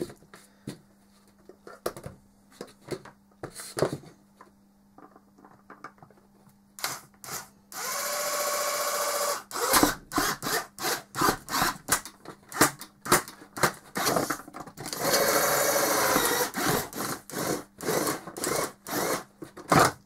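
Small electric drill drilling a hole through a plastic fan housing for a cable gland. The motor whines steadily in two runs, one just before the middle and one a few seconds later, with rasping and clicking strokes of the bit around and between them. Handling clicks come first.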